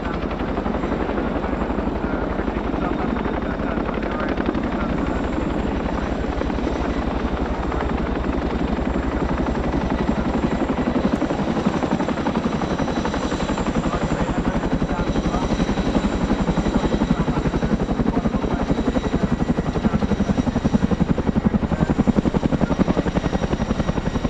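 Boeing CH-47 Chinook tandem-rotor helicopter at low altitude, its two rotors making a fast, steady beat over the high whine of its Lycoming T55 turboshaft engines. It grows somewhat louder near the end as it comes close overhead.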